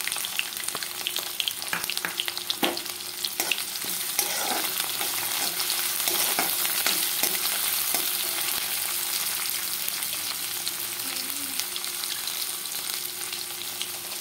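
Chopped onion sizzling in hot mustard oil in a kadhai, a steady frying hiss. A spatula scrapes and clicks against the pan as the onion is stirred, mostly in the first half.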